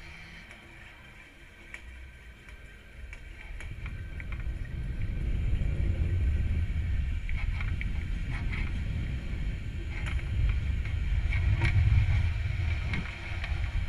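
Sound on board the Armadillo Aerospace STIG-A suborbital rocket high in flight. A low rumble builds from about four seconds in, with scattered ticks and short hisses over it.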